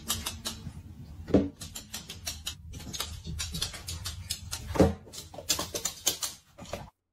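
Two balloons popping, the first about a second and a half in and the second near five seconds, each a sudden loud bang. Between them runs a rapid string of light clicks.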